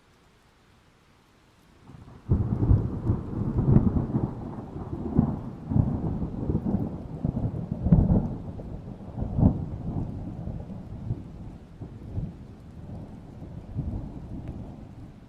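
Thunder: it breaks in suddenly about two seconds in, then rolls on as a low rumble with repeated cracking peaks that slowly fade, over rain.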